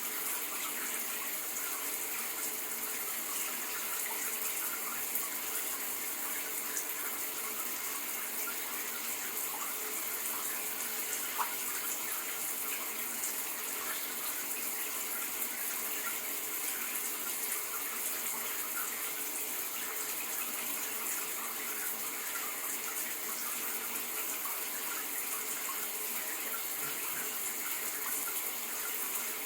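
Shower running: a steady stream of water hissing and spattering.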